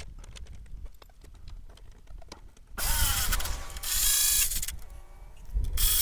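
Bolts being driven into nutserts on an aluminium Jeep inner fender: light metallic clicks, then from about three seconds in a louder rasping mechanical run of the fastening tool, which comes back near the end.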